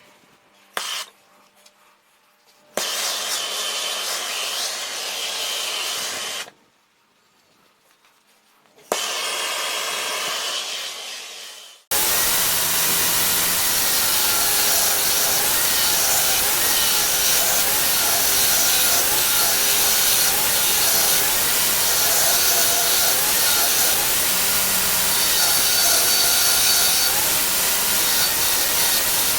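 Electric grinder working steel: a couple of short runs, then from about twelve seconds in it runs steadily, its pitch wavering as the load changes.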